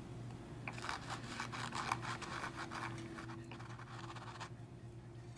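Cotton swab with rubbing alcohol scrubbing the old glue and foam residue off the edge of a woofer cone: a quick run of soft scratching strokes that stops about a second before the end, over a low steady hum.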